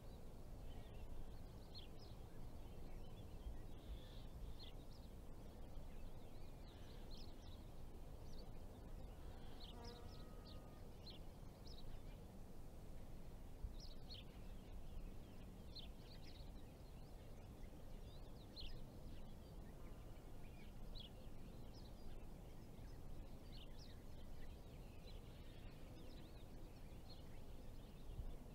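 Faint outdoor ambience: small birds chirping on and off, short high calls scattered throughout, over a low steady background rumble.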